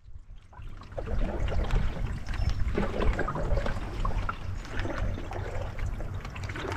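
Water trickling and splashing around a canoe moving on the river, with many small scattered taps and drips over a low rumble.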